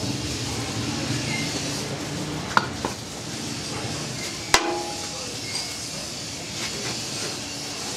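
Naswar mixing machine running: a steady scraping, grinding noise of the metal pan and pestle working the powder. There are two sharp metal clinks, the second, about halfway through, ringing briefly.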